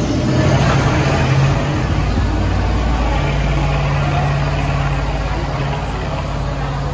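Ride truck's engine running as the truck drives along, heard from its open passenger bed. The engine note eases off about two seconds in and picks up again about a second later.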